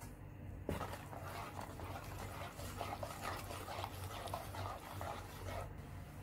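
Long metal spoon stirring a thick flour, milk and butter mixture in a stainless steel pot, starting with a light knock of the spoon on the pot, then a quick, irregular run of wet swishes and scrapes, over a low steady hum.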